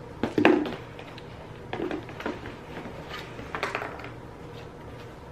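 Packaging being handled and opened: a sharp crackle about half a second in, then lighter crinkling and rustling in short bursts.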